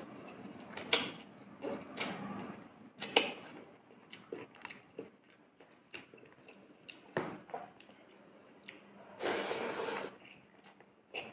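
Close-miked eating sounds: chewing and mouth smacks, with soft squishes and clicks as fingers mix rice and fish curry on a plate. A louder noise lasting about a second comes about nine seconds in.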